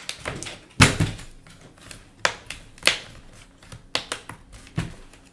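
Plastic snap clips of a Samsung Galaxy Tab 4 10.1's back shell clicking loose as it is pried open, a string of sharp snaps, the loudest about a second in.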